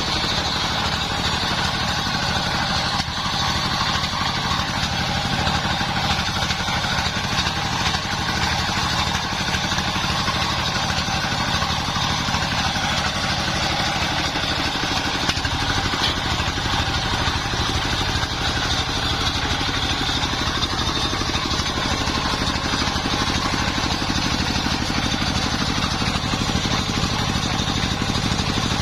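Engine-driven homemade circular saw running steadily, its motor at a constant speed with a faint whine from the spinning blade that drifts slowly in pitch.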